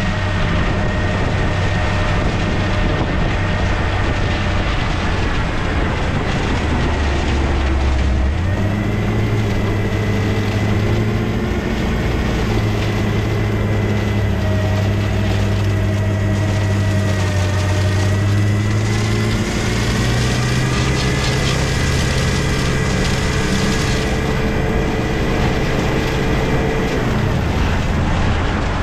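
Diesel engine of a heavy plow and salt truck running under way, its pitch stepping up and down several times as the transmission shifts.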